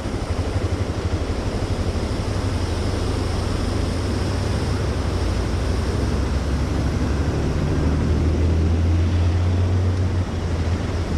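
Motorcycle engine running steadily while riding, with a steady rush of wind and road noise over it; the engine note grows louder for a few seconds in the second half.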